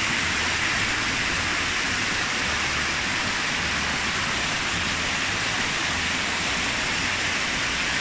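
Water rushing down a small cascade over limestone rock: a steady, even rushing hiss.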